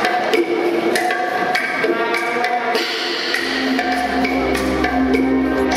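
Ballroom rumba music playing: sustained melody notes with sharp, dry percussion ticks. A deep bass line comes in about three seconds in.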